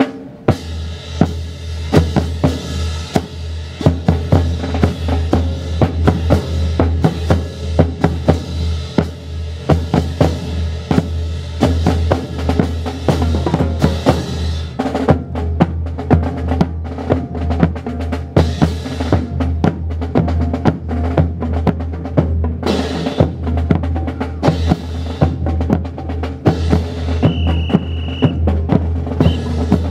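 Marching drum cadence of snare and bass drum, fast sharp strikes and rolls over a steady low hum. A short high tone sounds briefly near the end.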